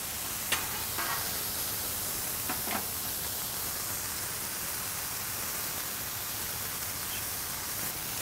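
Beef patties and chopped green chilies sizzling steadily on a flat-top griddle, with a few short metal scrapes and taps of a spatula on the griddle in the first three seconds.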